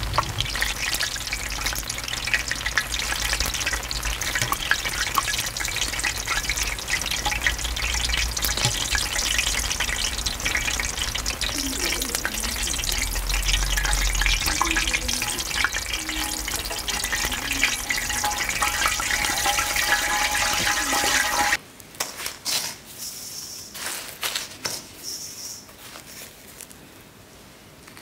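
Kkwabaegi twisted dough sticks deep-frying in hot oil in a cast-iron cauldron: a steady, dense sizzle and crackle. About three-quarters of the way through it cuts off suddenly, leaving quieter scattered rustles and clicks from a stainless-steel bowl of sugar being handled.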